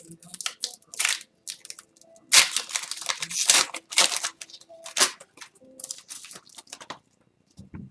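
Hockey card pack wrappers being torn open and crinkled by hand: irregular crackling and tearing, with the loudest rips about two and a half and three and a half seconds in.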